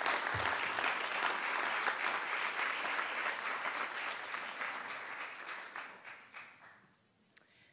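Audience applauding steadily, then thinning out and dying away about six to seven seconds in.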